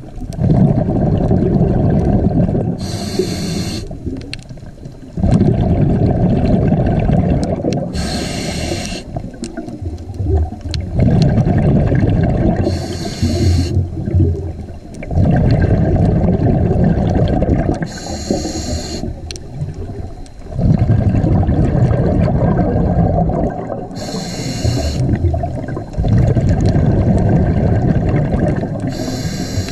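Scuba diver breathing through a regulator underwater: a short hissing inhale about every five seconds, each followed by a long, low gurgle of exhaled bubbles.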